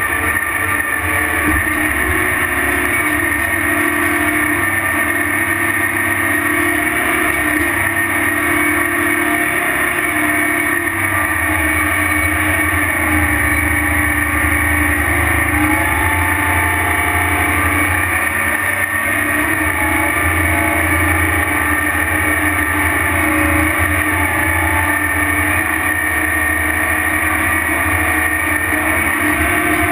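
Heavy tractor engine running steadily under load while towing a loaded pull-type dirt scraper, a continuous low drone with no breaks.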